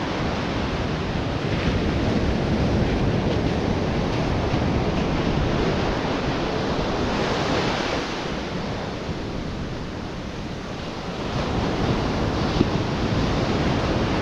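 Ocean surf breaking and washing up the beach, with wind buffeting the microphone; the wash eases for a few seconds past the middle and then builds again.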